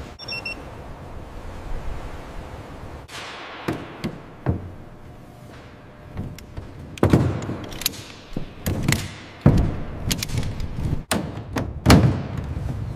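Workshop sounds of heavy metal work: a series of thunks and metallic clanks, some ringing out, over a steady low hum. The impacts are sparse at first and come closer together in the second half.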